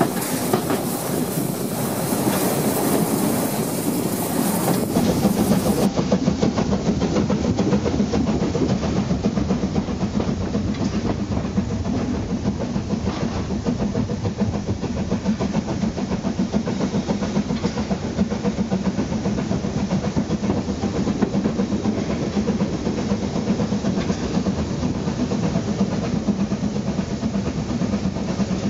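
Narrow-gauge steam train hauled by tank locomotive 99 236, heard running on the line: a steady rumble and rhythmic clatter of wheels on the track with some steam hiss. Wind noise mixes in during the first few seconds.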